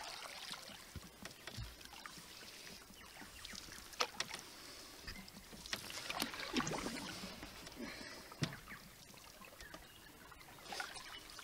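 Canoe paddle strokes: the blade dipping and pulling through calm lake water, faint, with a few sharp clicks along the way.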